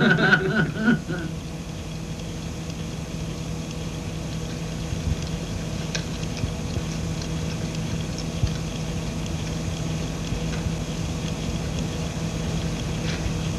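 Steady low hum over an even hiss, with a few faint clicks.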